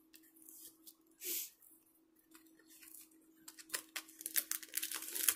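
Cardboard box being opened and handled by hand: a short scraping rustle about a second in, then scattered light clicks and rustles of the flap and packed contents that grow busier near the end.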